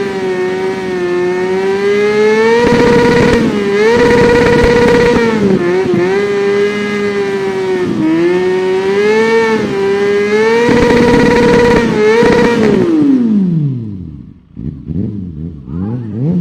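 Kawasaki Ninja 400's parallel-twin engine revving high and holding there with small dips in pitch. About twelve seconds in the revs fall away, and it ends with a couple of short blips of the throttle.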